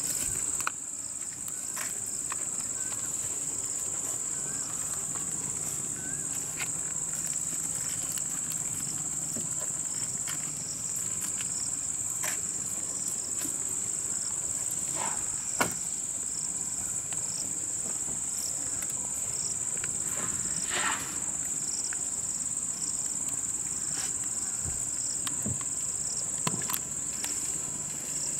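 Insects droning in one steady high-pitched tone, with a second insect calling in short regular pulses about every three-quarters of a second. Scattered sharp snaps, the loudest about halfway through.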